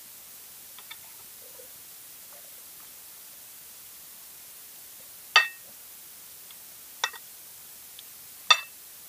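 Spoon and fork clinking against a plate while eating: three sharp clinks, about a second and a half apart, in the second half, with a few faint ticks near the start.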